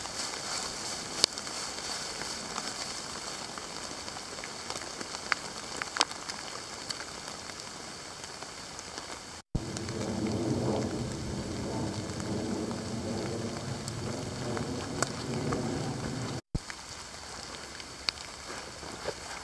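Crackling and rustling of footsteps through dry leaf litter, with scattered sharp ticks. Between two abrupt breaks in the middle, the rustle becomes louder and lower for several seconds.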